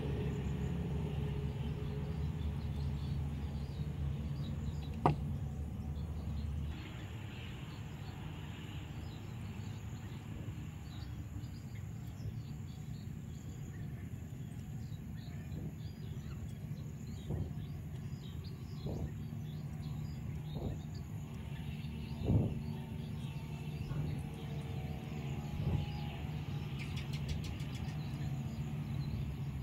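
Steady low background rumble like distant traffic, louder for the first seven seconds or so, with faint bird chirps. A few sharp clicks come from steel combination pliers gripping and bending safety-pin wire: one about five seconds in, then several about a second and a half apart later on.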